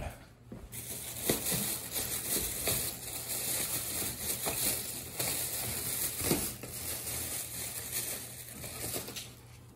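Plastic shopping bag and packaging crinkling and rustling as they are handled and rummaged through, with a few sharper crackles.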